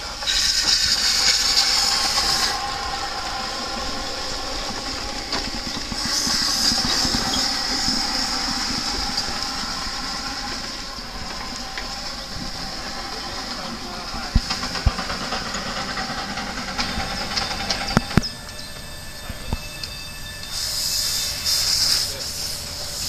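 Steam hissing in bursts, first from a miniature live-steam traction engine moving off, then from a miniature steam locomotive venting steam at its cylinders as it moves off. A few sharp clicks come between the bursts.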